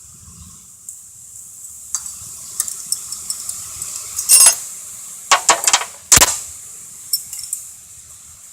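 Metal engine parts being handled and clinking together: a run of light clicks and taps, with the loudest clatters about four to six seconds in.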